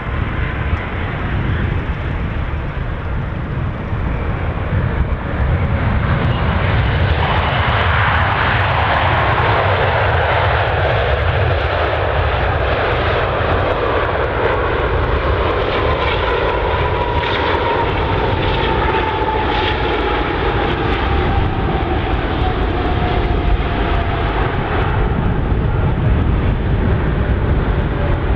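Boeing 777 jet airliner on final approach with its gear down: a steady low rumble of its engines that grows louder about five seconds in. Through the second half a thin whine falls slowly in pitch.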